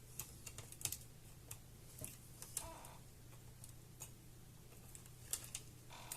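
Scattered light plastic clicks and taps from handling a laptop's internal parts, as the display's LVDS cable connector is worked free, over a faint steady low hum.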